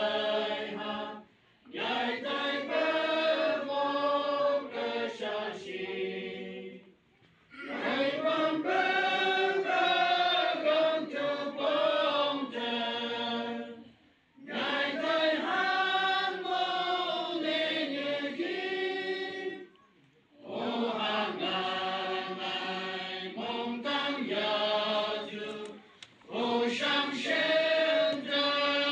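A congregation singing a hymn together, in long phrases with a short pause for breath about every six seconds.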